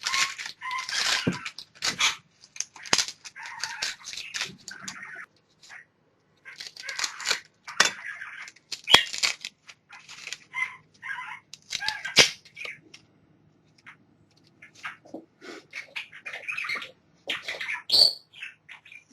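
Garlic cloves being peeled by hand: papery skins crackling and rustling, with sharp clicks and taps, in irregular bursts broken by short pauses.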